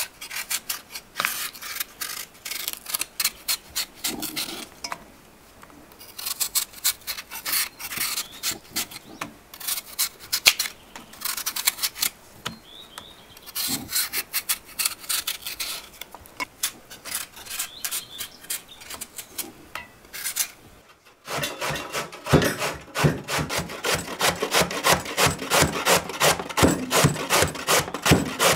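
Repeated rasping, scraping strokes, uneven at first and then settling about two-thirds of the way through into a steady rhythm of about three strokes a second.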